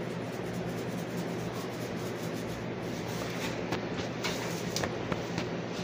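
Steady low hum of room noise, with a few light clicks and taps of handling in the second half.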